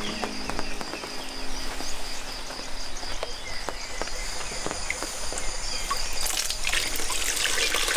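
Riverside outdoor ambience: an insect trilling in a steady pulse of about five beats a second over the hiss of flowing river water, with scattered small clicks and knocks. A brief rustling hiss comes about six seconds in.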